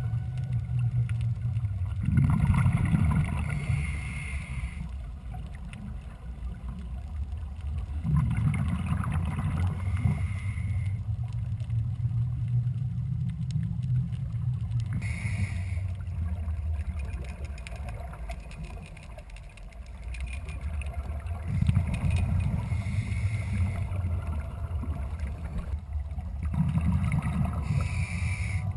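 Underwater sound of scuba diving: bursts of exhaled regulator bubbles come about every five to seven seconds, five in all, over a steady low rumble.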